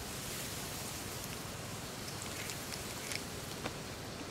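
A steady hiss with a few faint ticks scattered through it, mostly in its second half.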